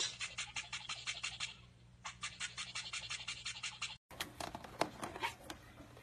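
Rapid scratching clicks, about seven a second, in two runs with a short break between them, then sparser, fainter clicks near the end.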